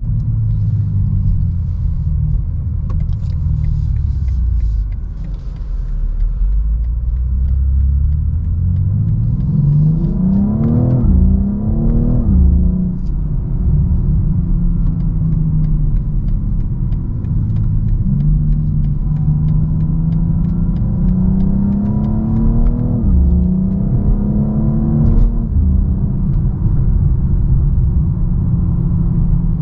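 BMW X4 M Competition's twin-turbo inline-six heard from inside the cabin, accelerating through the gears: the engine note climbs in pitch, then drops back with each upshift, several times over. Part of the engine sound in the cabin is enhanced through the car's speakers.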